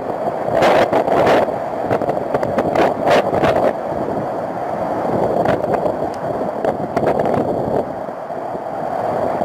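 Cyclone-force wind and heavy rain: a loud, continuous rushing with gusts that surge louder about a second in and again about three seconds in, the wind buffeting the microphone.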